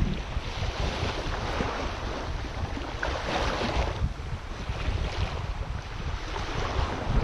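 Small waves washing at the shoreline, swelling and ebbing about three times, with wind rumbling on the microphone underneath.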